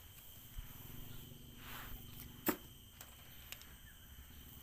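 Faint riverside ambience: a steady high insect drone and a low hum, with one sharp click about halfway through and a lighter tick a second later.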